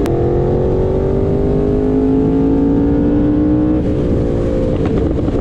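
Yamaha R1's crossplane inline-four engine pulling under acceleration while riding, its pitch rising steadily for about four seconds. The note then drops and fades into wind rush near the end.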